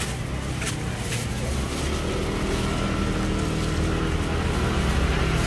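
Road traffic: a motor vehicle's engine running, a steady low rumble growing slowly louder, with a faint whine coming in about two seconds in and a couple of light clicks near the start.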